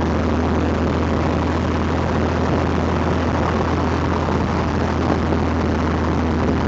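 Steady engine and road noise heard inside the cabin of a moving car, a constant low rumble with no changes.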